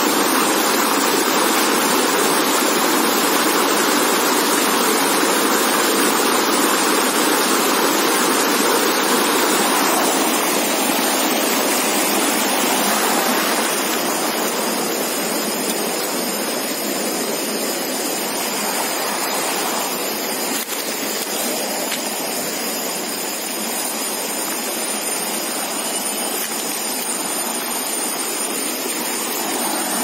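Steady rush of white water cascading over boulders in a small waterfall. It drops somewhat quieter about halfway through as the sound moves farther from the falling water.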